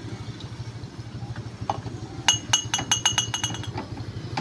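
A quick run of about ten ringing clinks, a metal utensil striking a plate, starting about halfway through and lasting a second and a half, over a steady low hum.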